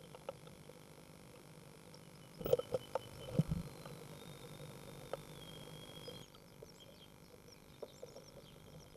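Inside a great tit nestbox: knocks and scuffs of the adult bird moving on the nest, loudest in a cluster about two and a half to three and a half seconds in, over a faint thin high tone. In the last few seconds there are short, faint high peeps as the newly hatched great tit chicks gape and beg.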